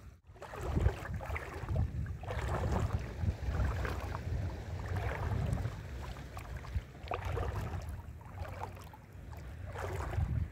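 Wind buffeting the microphone as a steady low rumble, over shallow sea water sloshing irregularly.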